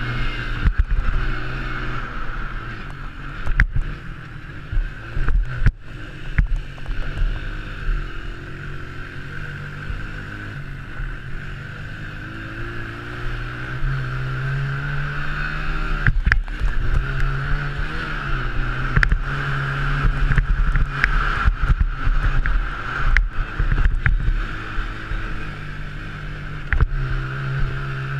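Honda TRX90 mini quad's small four-stroke single-cylinder engine revving up and down as it is ridden hard around a dirt track, heard from a helmet camera. Its pitch climbs and drops repeatedly, with many sharp knocks and thumps over it.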